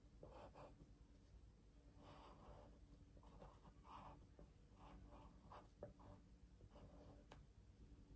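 Faint scratching of a drawing tool on paper, in a series of short separate strokes, as a tree trunk is drawn in, with one sharp tick near the end.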